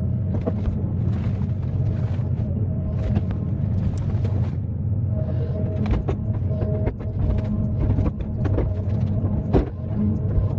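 Excavator's diesel engine running steadily, with irregular sharp knocks and clanks.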